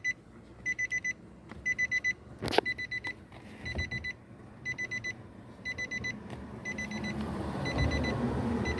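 A car's electronic warning chime beeping in quick bursts of about four beeps, repeating a little under once a second. About 2.5 s in there is one sharp click, and handling noise grows near the end.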